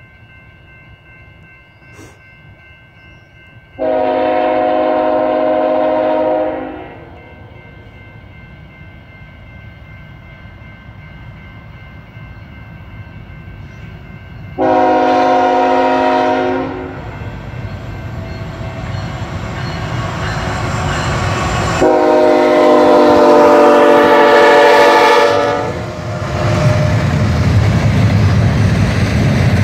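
CN freight train's multi-tone air horn sounding three long blasts as the train approaches, the last the loudest. Near the end the low rumble of the freight cars rolling past takes over.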